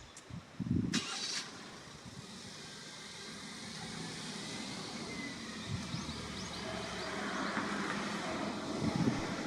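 A road vehicle approaching, its engine and tyre noise growing steadily louder over several seconds, with birds chirping faintly over it. There is a short noisy bump about a second in.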